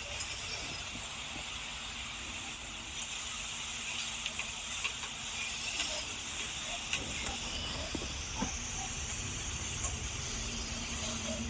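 Steady hiss of background noise, with scattered faint clicks and three brief high-pitched chirps.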